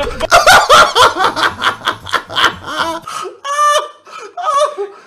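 A man laughing hard in a high-pitched, rapid laugh: quick repeated bursts, about five a second, for some three seconds, then one held high note, then weaker breathy gasps of laughter.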